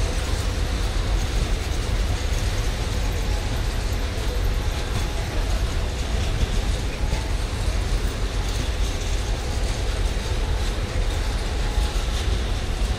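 Empty container flat wagons of a freight train rolling past at close range: a steady rumble of steel wheels on the rails, with short clicks throughout.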